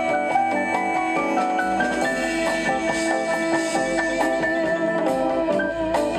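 Instrumental music: held melodic notes over a steady percussive beat, with no singing.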